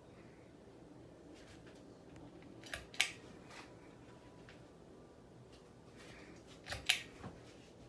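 Harbor Breeze Springfield ceiling fan running slowly with a faint steady hum, its motor slowed by a failing capacitor. Two pairs of sharp clicks, about three and seven seconds in.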